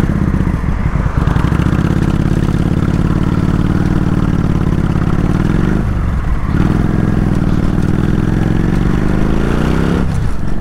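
Kawasaki VN 800's V-twin engine pulling the motorcycle up through the gears. It rises in pitch, drops at a gear change about six seconds in, rises again, and drops once more near the end.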